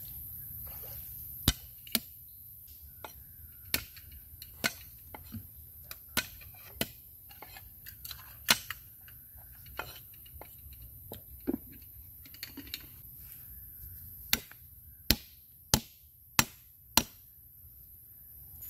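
A knife chopping on a wooden board: irregular sharp strikes, some single and some in quick pairs, ending in a run of four loud chops about a second and a half apart.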